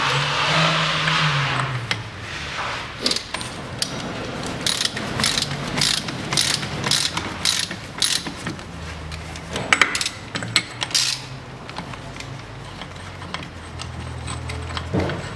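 Ratchet wrench clicking in repeated strokes as a socket on an extension spins the loosened front drive-shaft hub nut off. It opens with a swell of rushing noise and a falling hum, and the clicking thins out after about eleven seconds.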